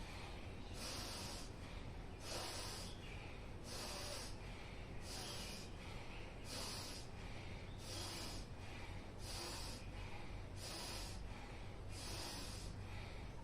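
Bhastrika pranayama (bellows breath): a person breathing forcefully and rhythmically through the nose, about ten strong breaths, one every second and a bit, each a short rush of air.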